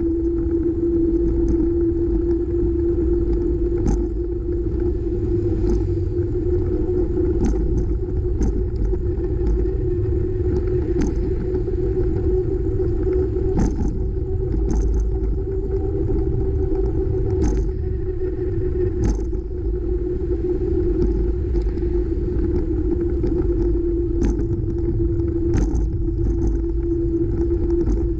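Steady riding noise from a bicycle-mounted camera: a low rumble of wind on the microphone and tyres on pavement, with a constant hum. Irregular sharp clicks and rattles come every second or two.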